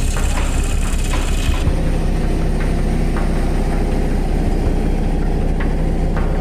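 Heavy vehicle's engine running steadily under rattling and clicking. About a second and a half in, the sound changes abruptly to a smoother engine hum with a clear low pitch.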